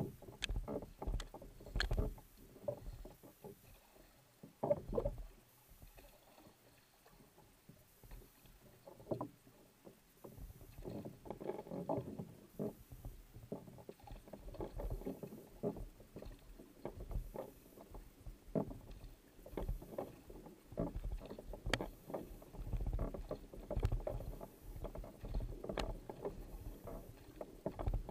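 Kayak paddle blades catching and pulling through the water, splashing beside a racing kayak's hull, in uneven strokes with a quieter stretch about five to ten seconds in.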